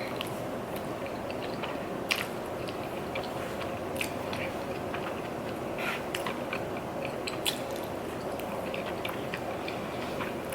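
Close-up chewing of food, with wet mouth sounds and a few sharper crisp clicks of bites, roughly every two seconds.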